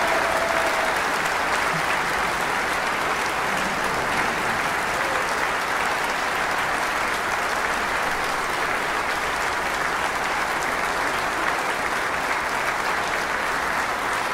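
A large audience applauding steadily. In the first second the orchestra's last held note dies away under the clapping.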